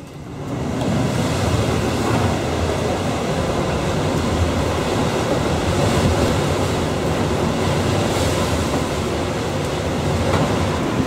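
Strong storm wind blowing steadily, with a deep rumble of wind buffeting the microphone.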